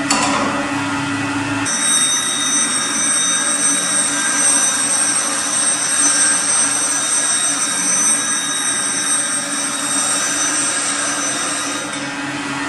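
A lathe spinning a CBN grinding wheel makes a steady hum. From about two seconds in until near the end, a bowl gouge held in a sharpening jig is ground against the wheel, adding a steady, high-pitched grinding hiss.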